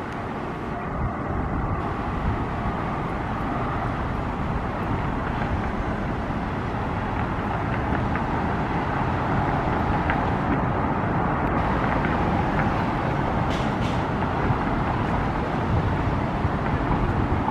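Steady rumble of distant road traffic, slowly getting a little louder, with a few faint clicks.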